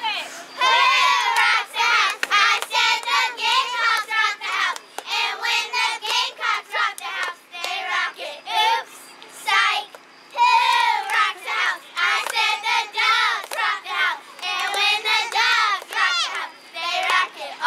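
A group of young girls chanting a cheer together in high children's voices.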